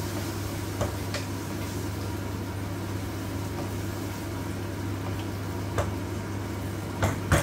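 Steady low electrical hum, with a wooden spatula stirring onions in a pan and knocking against the metal a few times, twice in quick succession near the end.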